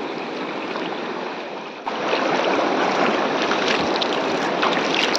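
River water rushing steadily, a constant noisy hiss that jumps louder about two seconds in.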